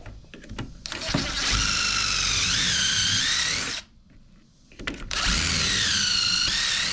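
Power drill running a bit through a Kreg pocket-hole jig, twice for a few seconds each, drilling pocket holes. Its whine dips and recovers in pitch during each run.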